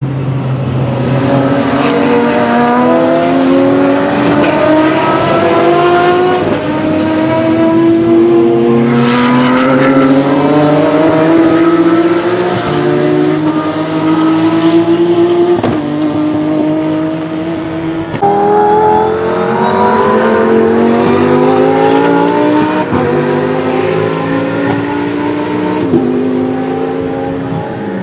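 Race car engines accelerating hard through the gears, one car after another: each engine note climbs in pitch and drops back at every upshift, and the notes overlap as the cars follow each other.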